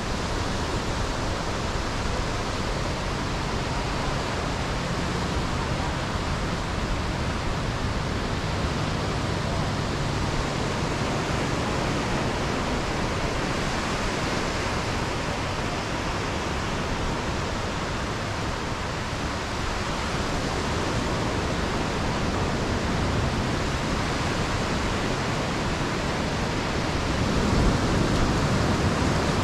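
Ocean surf breaking and washing up a sandy beach, a steady even noise that swells a little near the end.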